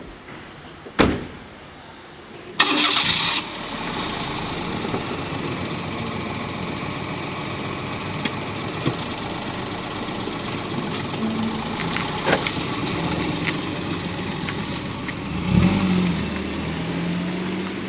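A sharp knock about a second in, then a car engine is cranked and catches with a loud burst and settles into a steady run. Its pitch rises briefly near the end.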